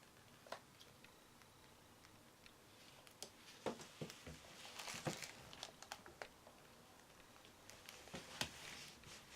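Pet budgies pecking at their food: scattered soft clicks and short rustles, busiest a few seconds in and again near the end.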